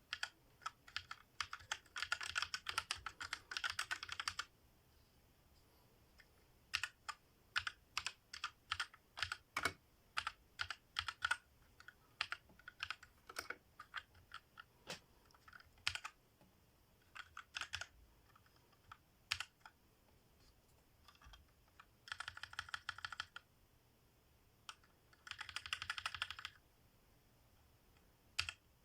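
Cheap 60% mechanical keyboard being typed on. There are fast runs of keystrokes about two to four seconds in and twice more near the end, with single key presses scattered between.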